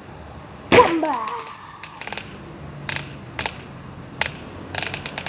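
Wooden longboard deck slapped down onto concrete with one sharp clack about a second in, followed by scattered lighter knocks and clicks from the board and its wheels.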